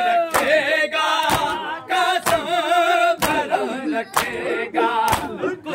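A group of men chanting a noha in unison, with six sharp chest-beating strikes of matam falling together just under a second apart.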